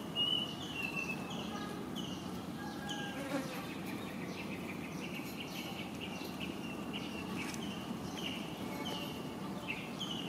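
Insects calling: a short high-pitched note repeated about twice a second, over a steady low background hum.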